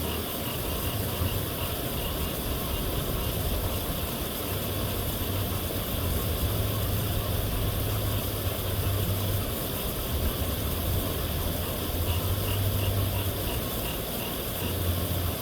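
Steady rush of water pouring over a dam spillway, with a low rumble that swells and fades. Faint high chirps repeat at the start and again near the end.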